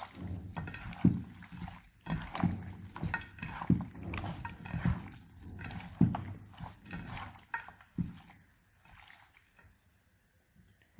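Hands squelching and squishing chunks of raw chicken through a thick yogurt marinade in a steel bowl, in irregular wet strokes and slaps. The mixing stops about eight seconds in, leaving only faint sounds.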